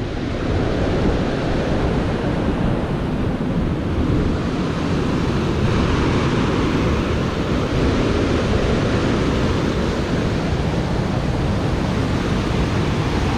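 Steady, loud rushing of a creek in flood, running high after heavy rain.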